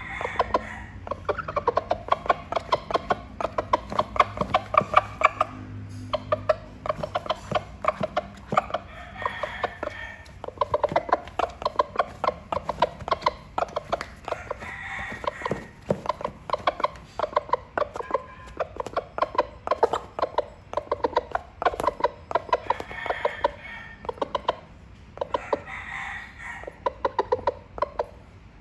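A rooster calling hens with rapid clucks, in repeated runs of many short notes a second, each run lasting a few seconds.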